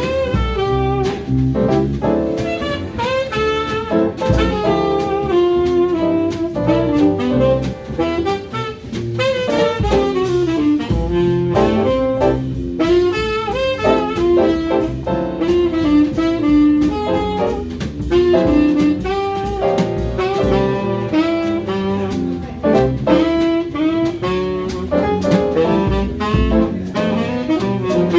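Jazz quartet playing swing: saxophone carrying a winding melodic line over piano, walking double bass and drum kit.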